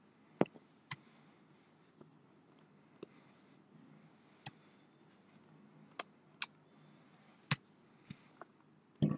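Sparse, irregular clicks from a computer keyboard and mouse as numbers are typed into a form and a button is clicked, about ten in all. A brief, louder, noisier sound comes right at the end.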